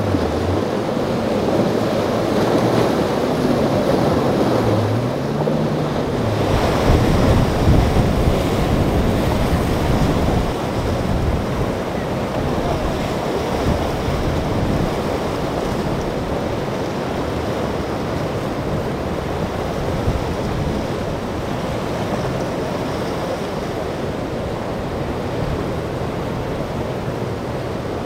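Rough surf churning and breaking, with wind buffeting the microphone. In the first few seconds a boat's outboard engine note wavers up and down beneath the water noise, and the wash grows louder about six seconds in.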